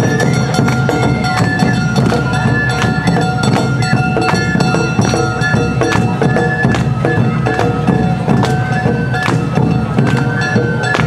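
Awa odori narimono band playing: a shinobue bamboo flute carries a stepping, high melody over a steady beat of shime-daiko, ōdaiko and kane gong.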